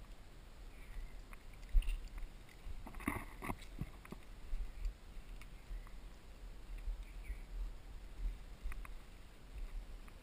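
Muffled knocks and rubbing from a handheld camera being carried on a hike, with a steady low wind rumble; a cluster of louder knocks comes about three seconds in.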